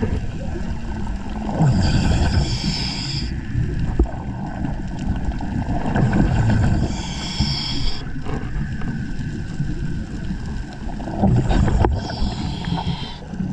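A diver breathing underwater through a regulator: three hissing, bubbling breaths, roughly every five seconds, over a steady low rumble of water.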